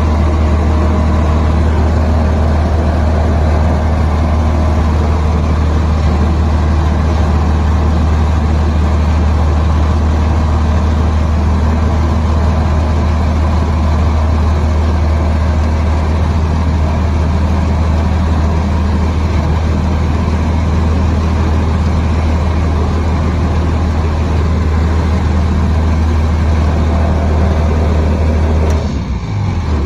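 Titan Tornado light aircraft's engine and propeller running steadily on the ground, a loud, even drone. Near the end the note changes and begins to die away as the engine is switched off.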